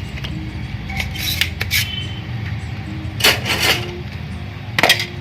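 Soft background guitar music over a steady low hum, with a few short, sharp strums or clicks.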